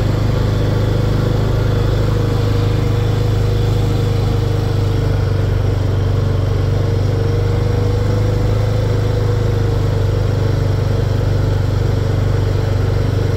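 Honda ATV engine running at a steady speed while being ridden, a loud continuous hum with a faint, slightly wavering higher tone over it.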